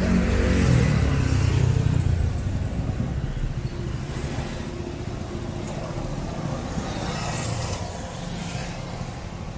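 A motor vehicle's engine passing close by, loudest in the first two seconds and then fading away into steady street traffic noise.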